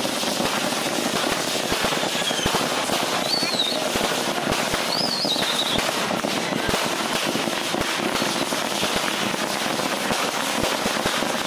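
Fireworks display: a continuous rapid crackle of many small pops from bursting fireworks. Two short wavering whistles come through about three and five seconds in.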